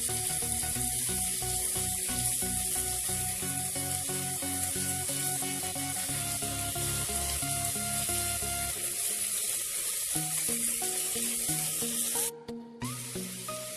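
Cauliflower, potato, peas and onion sizzling as they fry in oil in an open pressure cooker, a steady hiss, with electronic background music playing over it. The sizzle breaks off for a moment near the end.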